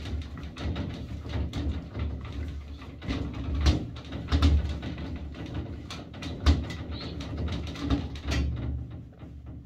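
Cleaning a glass shower enclosure by hand: the panels and door knock and rattle irregularly in their frame as they are scrubbed, with a cloth rubbing on the glass.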